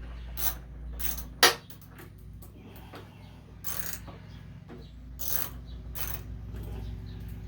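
Socket ratchet clicking in short runs while the 1/4-inch bolts of a lawn mower's air filter collar are undone, with a sharp metal click about a second and a half in. A steady low hum runs underneath.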